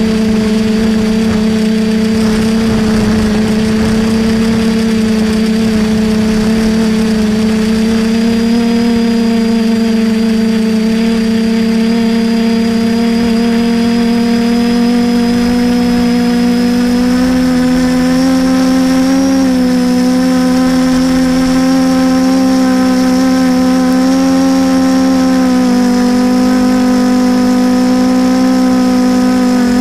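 DJI F450 quadcopter's four motors and propellers droning steadily, heard close up on the airframe, a strong even hum whose pitch rises slightly about two-thirds of the way through as the throttle changes.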